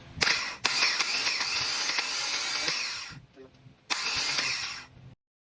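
An electric starter motor run in two bursts, about three seconds and then about one second, each starting and stopping abruptly: the repaired starter being test-run.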